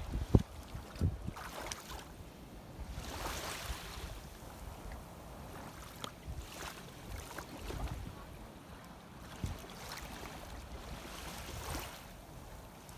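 Shallow seawater sloshing, with wind buffeting the microphone; the noise swells and eases every few seconds, and a few low thumps come in the first second or so.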